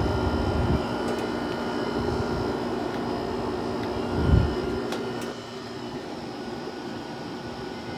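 Haier 5,200 BTU window air conditioner running on high with the compressor on: a steady rush of air from the fan with a constant hum and whine. There is a low thump about four seconds in, and the sound gets a little quieter after about five seconds.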